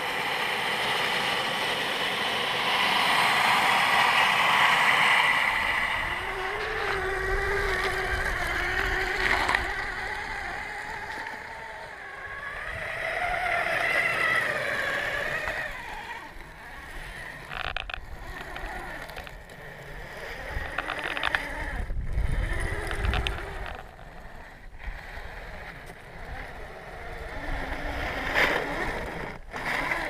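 Kyosho Blizzard SR RC snowcat driving through snow: its two brushed 540 electric motors and homemade metal gearboxes whine, the pitch rising and falling with the throttle. A few sharp knocks come in the second half.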